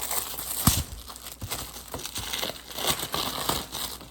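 Packaging crinkling and rustling as a cube mat is taken out and unwrapped, in irregular strokes, with a short thump under a second in.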